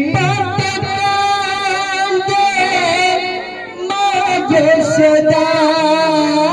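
Male kirtan singer singing into a microphone, holding two long wavering notes, with light drum and cymbal percussion behind.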